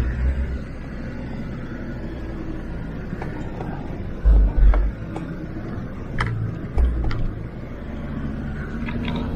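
Inside a Land Rover Discovery's cabin creeping over a rocky track: the diesel engine runs low and steady, with heavy low thuds about four and a half seconds in and again near seven seconds as the truck jolts over the rock, and scattered sharp clicks and creaks from the body and suspension.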